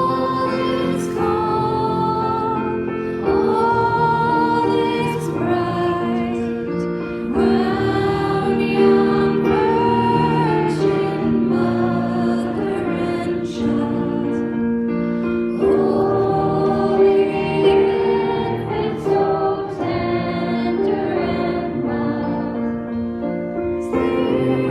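Background music: singing voices on slow, held notes over sustained chords.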